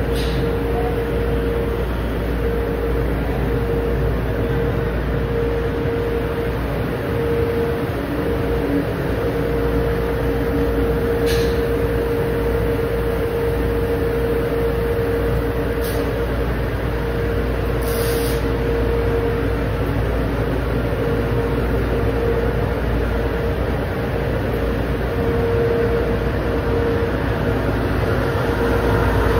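Steady hum and rush of welding-shop fume-extraction fans running, with a constant mid-pitched tone. A few faint short clicks stand out briefly.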